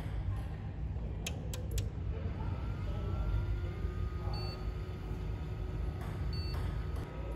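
Agilent 8163A lightwave multimeter powering up: three quick clicks about a second and a half in, then a rising whine that levels off into a steady tone as it starts running, with two brief high beeps around four and six seconds in, over a steady low rumble.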